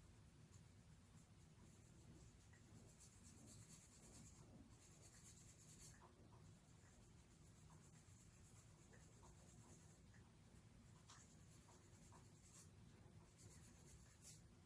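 Near silence, with faint intermittent scratchy rustling and a few soft clicks over a low steady room hum.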